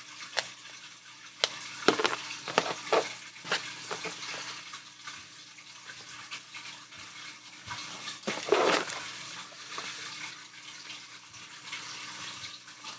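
A blade cutting through sheet gasket material: a series of short scraping strokes in the first few seconds, then one longer cut about eight seconds in.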